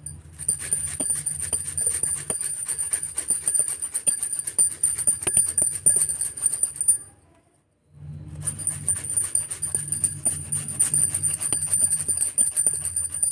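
Fresh ginger being grated on a fine grater: quick repeated scraping strokes, with a pause of about a second just past the middle before the grating resumes.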